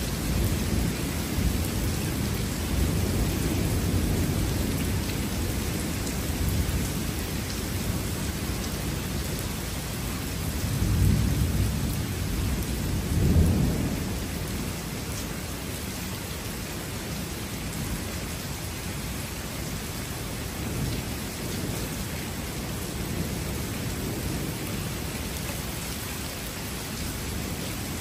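Thunder rumbling over steady rain, with two louder deep peals about halfway through.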